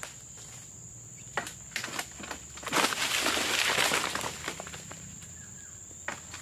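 Oil palm pruning with a stainless-steel egrek pole sickle: a few light clicks and knocks of the pole among the fronds, then about three seconds in a sudden loud rustling rush lasting about a second and a half as a palm frond is cut and drops through dry, hanging fronds.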